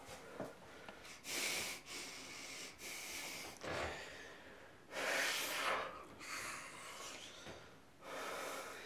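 A young man breathing heavily through his mouth in agitation: loud, hissing breaths every two seconds or so, the strongest about a second in, midway and near the end.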